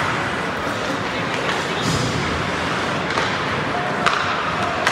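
Ice hockey play on a rink: a steady scrape of skates on the ice, with several sharp clacks of sticks and puck, and players' voices calling out.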